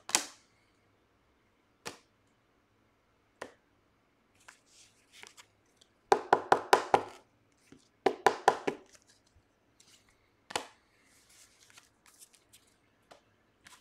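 Hands handling trading cards and rigid plastic card holders on a table: a few single sharp taps, and twice a quick run of rapid clicking, with faint rustling in between.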